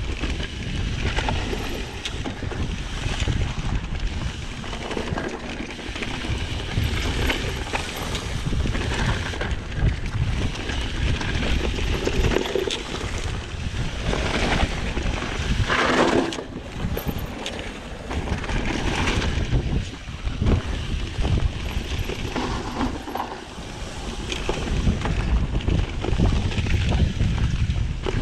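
Wind buffeting the microphone during a mountain-bike ride, over a continuous low rumble with scattered knocks from the bike on the trail.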